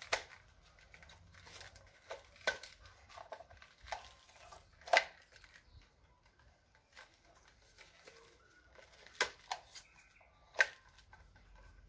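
Handling noise from a string-trimmer head and its nylon line: scattered sharp plastic clicks with light rustling as the spool is wound with line and fitted back into the head. The two loudest clicks come about five seconds in and near the end.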